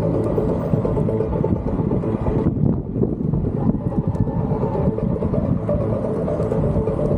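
Wind buffeting the microphone on a moving electric unicycle: a dense, steady low rumble with a few faint steady hums underneath.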